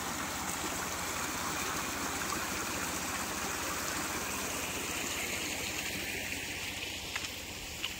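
Small rocky creek running, water splashing and burbling down a short cascade over stones, a little fainter in the last couple of seconds.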